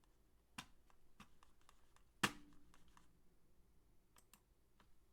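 A few faint, scattered computer mouse and keyboard clicks, the loudest about two seconds in, against quiet room tone.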